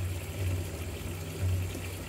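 Water trickling and splashing down an artificial rock fountain, with a low hum underneath that swells and fades unevenly.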